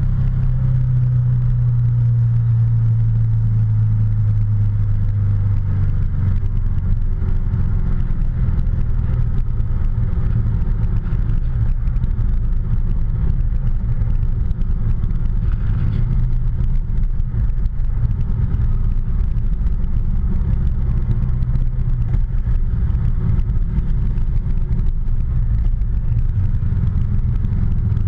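Ducati motorcycle engine running at road speed, heard from the rider's seat with wind noise. The engine note is strongest for the first few seconds, then eases to a steadier cruise.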